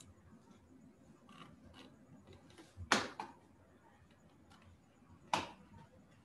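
Two sharp clicks about two and a half seconds apart, with a few fainter ticks between, from a computer being operated to open a saved file.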